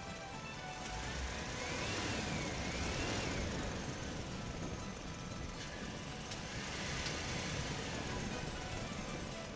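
WPL B24 RC truck's small electric motor and gearbox whining, the pitch rising and falling as the throttle is worked, with the tyres crunching over the dirt track. The whine swells twice, about two seconds in and again about seven seconds in, over background music.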